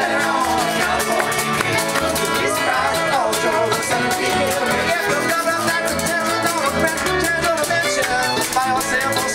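Live bluegrass band playing on acoustic guitar, banjo and upright double bass, with a steady bass pulse under the strings.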